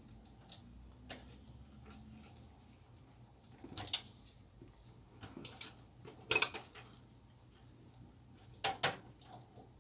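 Quiet handling noise of wires and small plastic connectors being moved over a laser printer's metal and plastic chassis, with a few light clicks and taps, the sharpest about four, six and a half and nine seconds in.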